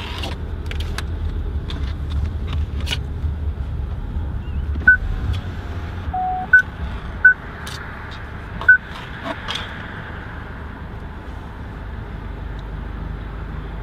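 A car engine runs with a low rumble, heard from inside the cabin. Between about five and nine seconds in, four short high electronic beeps and one slightly longer, lower beep sound over it.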